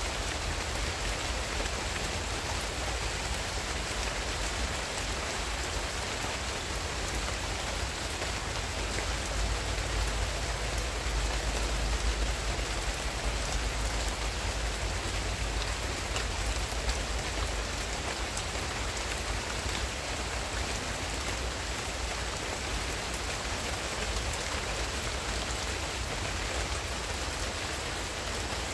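Steady rain falling on palm fronds and leaves, a dense even patter of drops with a low rumble underneath.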